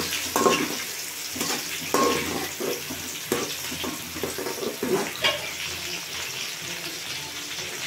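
Sliced onions sizzling steadily as they fry with whole spices in hot ghee and oil in an aluminium pot, with a slotted steel spoon stirring and scraping against the pot now and then.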